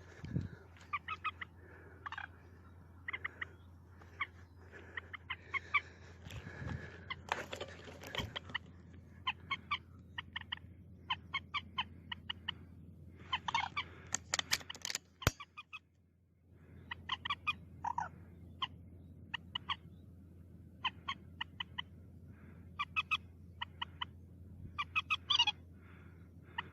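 White-breasted waterhens calling, a long run of short, quickly repeated notes in bursts. A single sharp click comes about halfway through.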